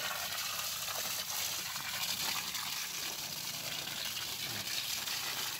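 Water from a garden hose spraying onto broad taro leaves and soil, a steady splashing hiss.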